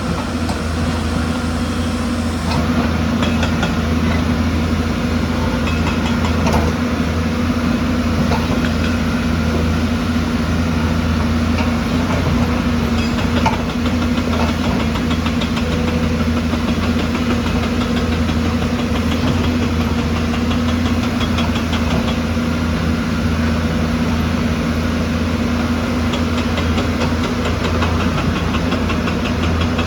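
Diesel engine of heavy construction machinery running steadily at an even speed.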